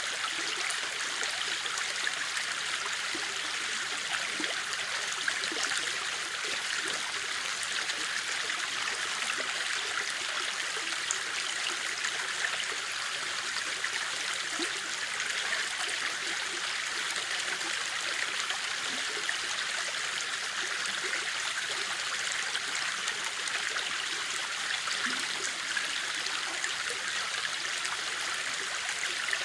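River water flowing steadily over rocks: an even rushing with small gurgles.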